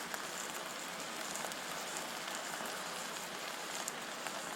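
Trout and hash browns frying in butter in a camp pan: a steady sizzle with a few faint pops.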